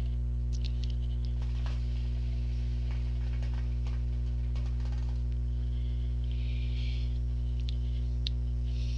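Steady low electrical mains hum, with faint irregular bubbling clicks from a hookah's water bowl as smoke is drawn through the hose, and a soft breathy exhale about six seconds in.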